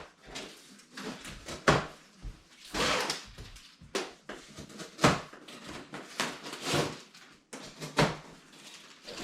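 Large cardboard box being cut open and handled: irregular sharp clicks and knocks, with a few short scraping rustles of blade and cardboard.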